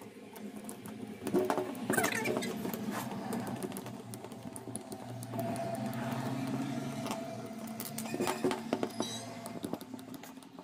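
Screwdriver clicking and scraping in the screws of an angle grinder's plastic rear end cap as they are backed out, with small knocks of the tool and housing being handled.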